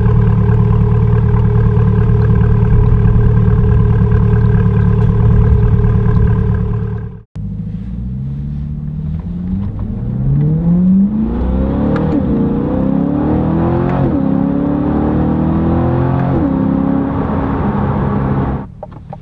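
2021 C8 Corvette's 6.2-litre LT2 V8 through a 2M Fabrication cat-back exhaust, first running at a steady speed behind the parked car. After a sudden break, it is heard from inside the cabin accelerating, the note climbing and dropping back at each of about three upshifts.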